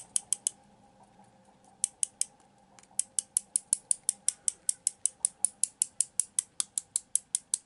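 Paint-loaded watercolour brush tapped against a thin plastic stick to spatter paint: sharp light clicks, a few at first, then a steady run of about five taps a second.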